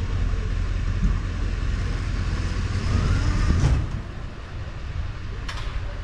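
Skateboard wheels rolling over pavement in a steady low rumble, with a sharp knock a little past halfway and another near the end.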